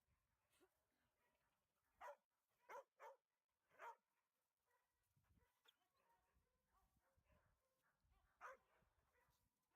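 A dog barking faintly: four barks in quick succession about two seconds in, then a single bark near the end.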